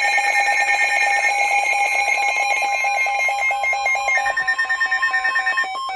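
Weather radio receivers sounding their alert for an incoming severe thunderstorm warning: a rapid beeping of about five beeps a second over a steady higher tone. Another tone joins about four seconds in, and the beeping changes just before the end.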